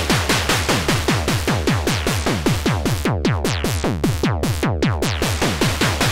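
Moog DFAM analog percussion synthesizer playing its step sequence: fast, even drum hits, about five a second, each a quick falling pitch sweep over a layer of hiss from its noise source. Its mixer levels for the two oscillators and the noise are being turned, and the hiss drops away a few times in the second half.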